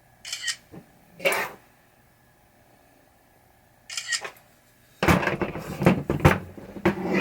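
Camera shutter clicks from photos being taken, a few seconds apart, then a run of knocking and clattering from about five seconds in as the metal drop target assembly is handled on a table.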